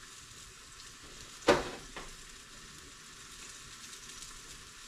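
Fish fillets frying in a pan with a steady faint sizzle, and a sharp knock about one and a half seconds in, followed by a lighter one.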